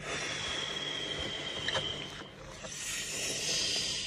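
A spicy sauce-covered cooked goat's head being pulled apart by hand, giving a hissing, tearing noise in two stretches, the second higher than the first.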